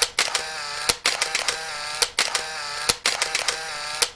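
Camera-shutter clicks, one about every second, over a sustained high-pitched musical tone that shifts pitch slightly between the clicks.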